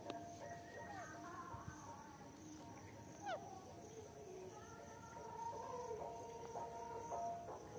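Soft background music with a slow, held melody, and a brief downward-sliding parrot call about three seconds in.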